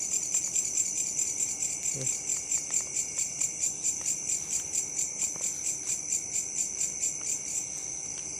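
Crickets chirping: a high, pulsing chirp about four times a second over a continuous high trill, the pulsing stopping near the end.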